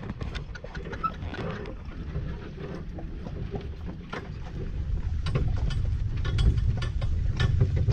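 Horse's hooves clip-clopping on a paved path as it pulls a jaunting car, over a steady low rumble of the cart rolling along. The hoof strikes grow louder and more frequent over the second half.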